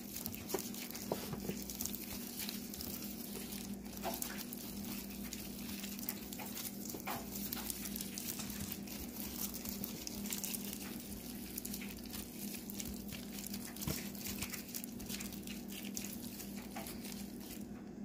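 Raw chicken wings being squished and turned in their seasoning by a plastic-gloved hand: a steady run of small wet clicks and squelches, over a low steady hum.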